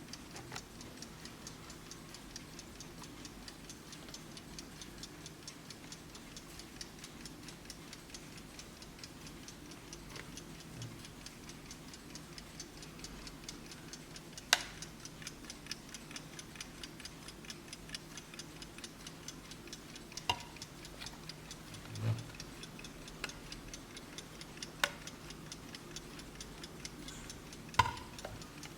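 Vintage Blessing alarm clock ticking with a fast, even beat, broken by a few louder single clicks and knocks, the loudest about halfway through.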